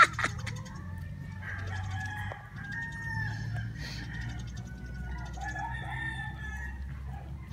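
A rooster crowing and chickens clucking among other bird calls, over a steady low hum.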